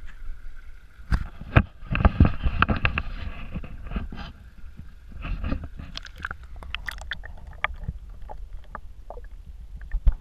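Knocks and bumps of a GoPro action camera's waterproof housing being handled and lowered into a garden pond, with water sloshing as it goes under. A cluster of sharp knocks comes about one to three seconds in, then scattered clicks as it settles below the surface.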